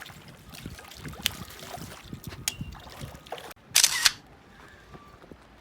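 Scattered sharp clicks and knocks, likely from handling fishing gear and a freshly caught fish, then a short, loud splash of water a little before four seconds in.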